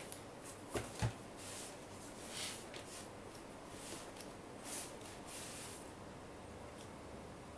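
Cardboard rustling and scraping as a product box is slid out of its white cardboard outer sleeve, with two light knocks about a second in followed by several soft swishes.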